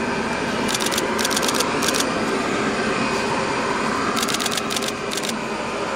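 Steady rushing background noise with several short bursts of rapid clicking: three in the first two seconds and three more near the end.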